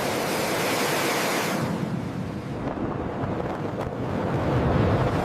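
Fighter jet engine roar, a loud rushing noise. Its high hiss fades after about a second and a half, leaving a deep rumble.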